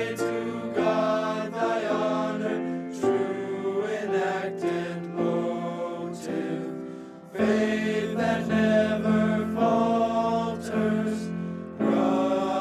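A choir singing a hymn in long, slow phrases, with a brief pause about seven seconds in before the next phrase begins.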